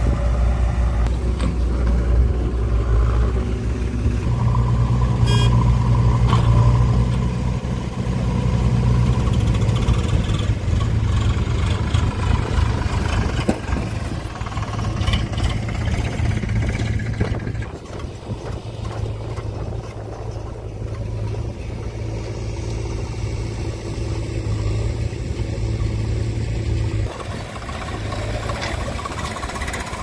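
Diesel engines of a JCB 3DX backhoe loader and a Swaraj tractor running, the backhoe's engine loudest at first and swelling and easing as it works; the sound drops in level a little over halfway through and changes again near the end.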